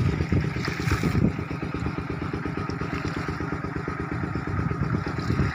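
A small engine running steadily with an even, rapid low chugging.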